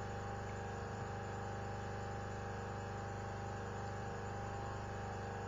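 A steady electrical hum with a buzzy edge and a faint hiss.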